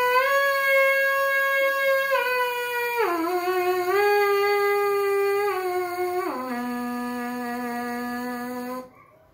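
Trumpet mouthpiece buzzed on its own, playing an unbroken slurred flexibility pattern. The buzzing tone steps down in pitch in a few slurs with small dips between, and ends on a long low held note that stops near the end.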